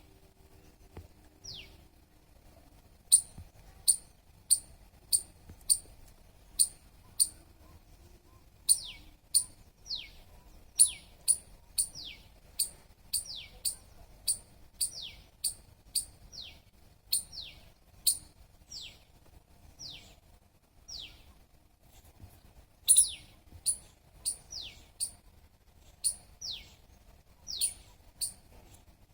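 Squirrel chirping: a long run of sharp, high-pitched chirps, each a click followed by a quick falling whistle, repeated about one to two times a second with a few short pauses.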